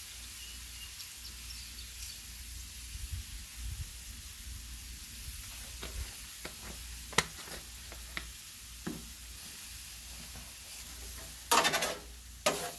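Shrimp, scallops, onion and mushroom sizzling steadily on a Blackstone flat-top griddle, with a few light clicks. Near the end a metal spatula scrapes across the steel griddle twice.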